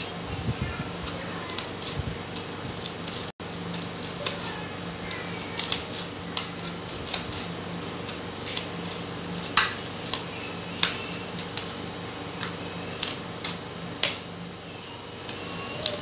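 Thin plastic bottle crinkling and clicking in the hands as decorative tape is wrapped around it and pressed down, in irregular small crackles over a steady low hum.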